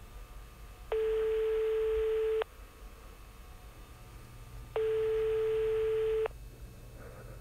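Telephone ringback tone on the caller's end of a call: two long steady beeps of about a second and a half each, a few seconds apart, the phone ringing unanswered at the other end.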